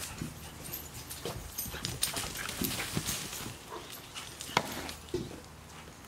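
Puppies at play: a few short dog vocalizations among scuffling and rustling in dry leaf litter, with one sharp knock about four and a half seconds in.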